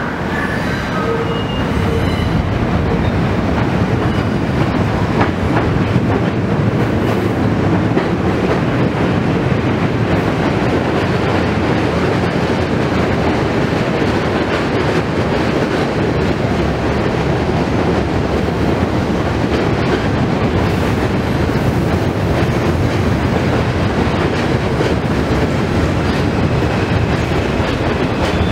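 New York City subway train running into the station close beneath the listener, a loud, steady rush of steel wheels on the rails.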